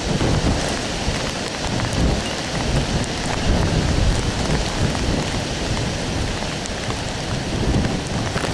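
Heavy hurricane rain and gusting wind: a steady hiss of rain over an uneven low rumble of gusts.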